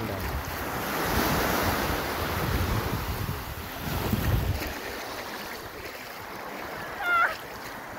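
Small waves washing up the shallow sandy shore, with wind buffeting the microphone through the first half. About seven seconds in, a brief call from a person's voice.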